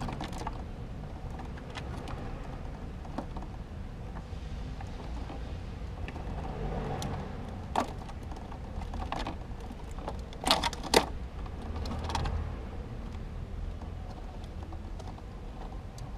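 A small rodent scrabbling inside a plastic-bottle trap: scattered clicks and taps of its movements against the thin plastic and the skewer frame, with a cluster of louder clicks about ten and a half seconds in.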